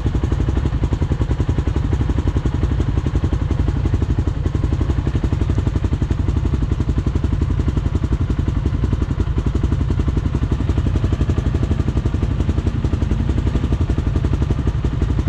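Off-road quad or side-by-side engine running steadily at low speed, a rapid low pulsing.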